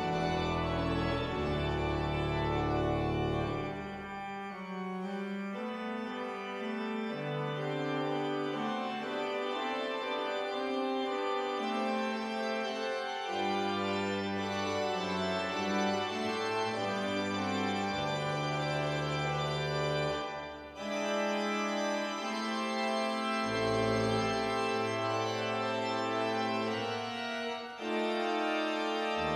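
Church organ playing the postlude: sustained chords over low pedal bass notes that change every few seconds, with two brief breaks about 21 and 28 seconds in.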